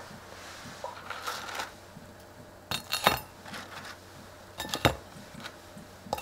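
Light clinks and knocks of a ceramic plate on a stone countertop as pieces of fried shrimp toast are lifted from a tray onto it, in two short clusters about three and five seconds in.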